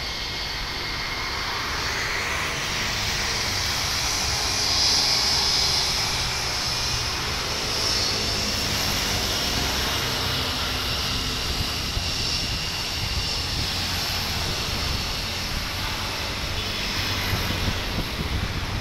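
IndiGo Airbus A320-family airliner's twin jet engines running at high power with a steady roar and a high whine, swelling about five seconds in, as the jet rolls down the runway on its takeoff run.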